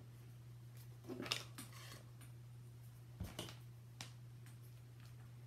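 Quiet handling noises: cardboard pieces rustling and tapping on a wooden table about a second in, then a soft knock about three seconds in as a hot glue gun is lifted, over a steady low hum.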